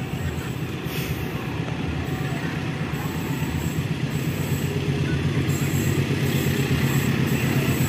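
Diesel locomotive engine running as it hauls a container freight train toward the listener, growing gradually louder.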